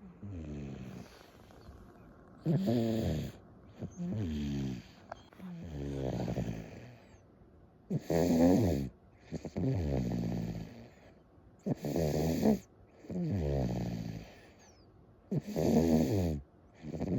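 A 14-month-old toddler snoring heavily in sleep: a steady run of about ten snores, one every second and a half to two seconds, each a buzzing tone that falls in pitch.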